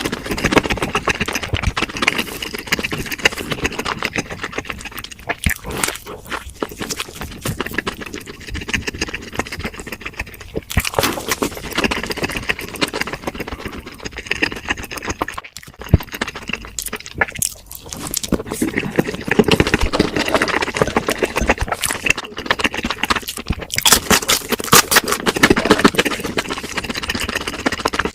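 A person chewing and crunching food close to the microphone: a steady run of wet clicks and crackles, busier in the last third.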